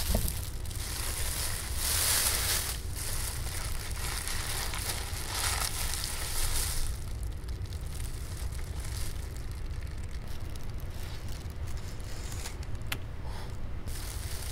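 Thin plastic bag crinkling and rustling as food is unwrapped from it. The crinkling comes in several louder bursts over the first seven seconds or so, then goes on more softly, with one sharp click near the end.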